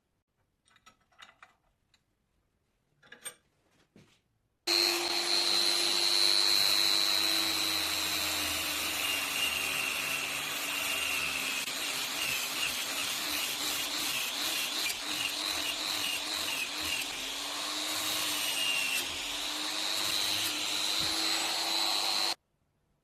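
An electric power tool starts suddenly about five seconds in and runs with a steady whine and a rough rubbing noise as it works the cleaver's rusty steel, its pitch dipping in the middle and recovering, then cuts off abruptly near the end. Before it, a few faint knocks of handling.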